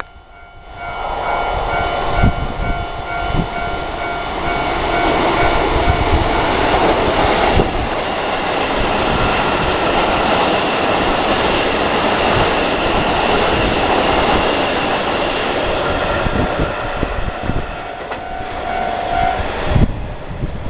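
A Keisei Oshiage Line electric train running past, its wheels knocking over rail joints, while the level crossing's warning bell rings in steady repeated tones.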